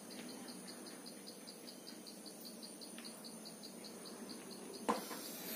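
A cricket chirping steadily, about four short pulses a second. One sharp click a little before the end.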